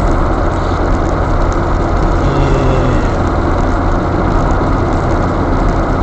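Steady interior engine and road noise of a Fiat Tempra Stile turbo cruising along an open road, a dense even rumble.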